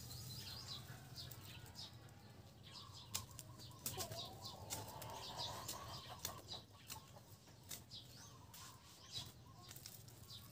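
Faint rustling and a string of sharp, scattered clicks as coconut seedling leaves are handled and trimmed with a small knife.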